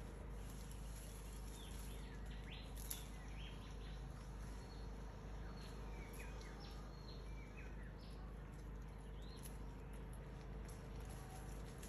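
Forest ambience: scattered short bird chirps and whistles over a steady low background noise, with one brief sharper sound about three seconds in.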